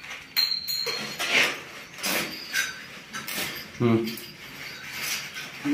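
Light metallic clinks and knocks of stainless steel railing tubes being handled and positioned, in short separate bursts, with brief low voices.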